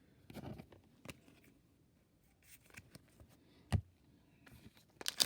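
Trading cards being handled: faint clicks and short scrapes of cards slid and set down, with one sharper knock about three and a half seconds in.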